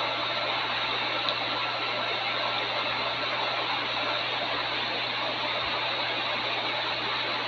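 Steady, unchanging background hiss with a low hum underneath.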